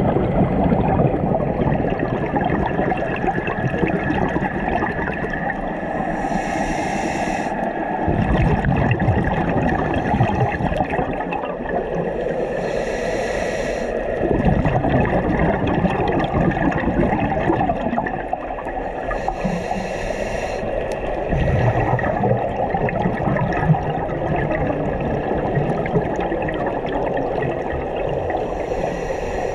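Scuba diving underwater: steady bubbling water noise with a diver breathing through a regulator, giving a hiss about every six to seven seconds, four times.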